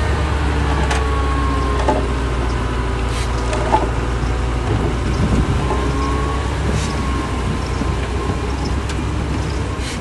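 Heavy diesel engine of earthmoving machinery running steadily, its pitch wavering slightly, with a few sharp knocks, the loudest about four seconds in.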